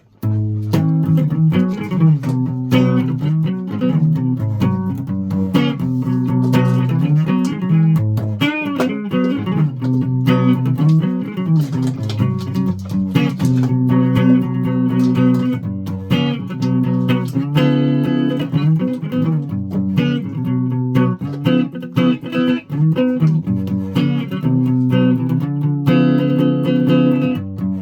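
A guitar being picked, playing a continuous run of notes and chords, played without tuning by the player's own account.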